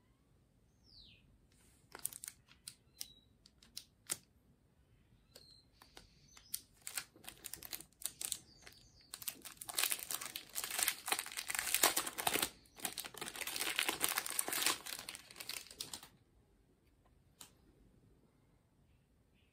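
Clear plastic wrapper being torn open and peeled off a deck of playing cards: scattered sharp crackles at first, then about six seconds of dense crinkling that stops a few seconds before the end.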